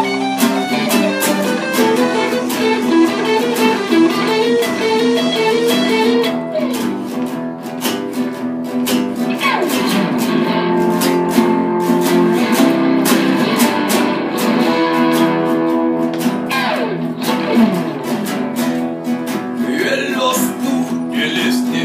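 Electric guitar and three acoustic guitars playing an instrumental passage: a picked melody over strummed chords, with notes sliding down about ten and seventeen seconds in.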